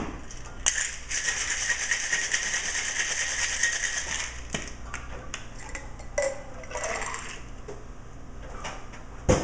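Ice rattling hard in a cocktail shaker as a drink is shaken, a fast continuous rattle for about four seconds. It ends with a knock, then quieter handling and one sharp knock near the end.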